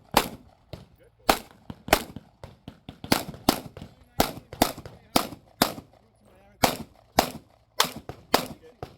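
Rapid 9mm pistol fire from a Glock 45: about fifteen sharp shots, mostly in quick pairs a little under half a second apart, with short pauses between pairs.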